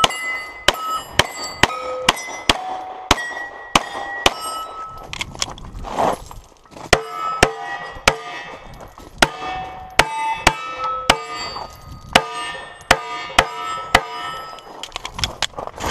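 Rapid 9mm pistol shots from a Glock 34, fired in quick strings at steel targets, most of them followed by the ringing of a struck steel plate at a different pitch. There is a short break in the firing about six seconds in.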